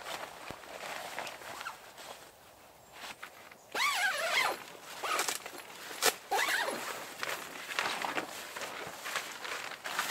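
Footsteps rustling through dry fallen leaves while tent fabric is handled. A zip is pulled in several quick strokes around the middle, and there is a sharp click just after it.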